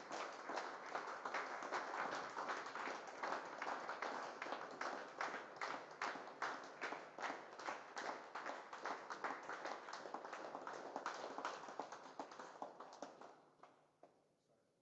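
Congregation applauding, a crowd's clapping that dies away about thirteen seconds in.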